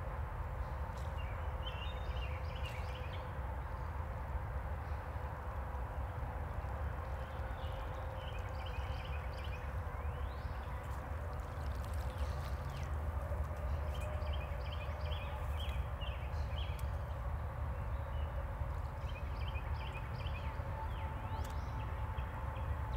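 Outdoor pond-side ambience: a steady low rumble with a faint constant hum. Short runs of quick, high chirping notes come every few seconds.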